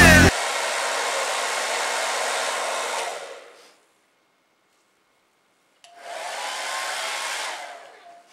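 Handheld hair dryer blowing steadily, then winding down and falling silent about three and a half seconds in. After a pause it starts up again near six seconds, its motor whine rising as it spins up, runs for a second or two, and winds down.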